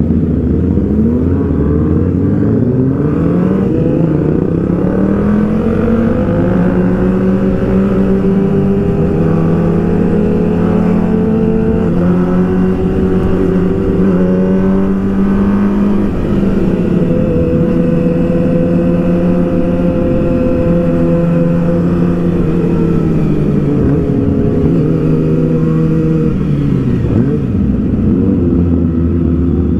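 Kawasaki ZX-6R 636 inline-four sport bike engine and exhaust under way at low road speed. The revs climb and drop several times as it pulls away and eases off, with longer steady stretches in between.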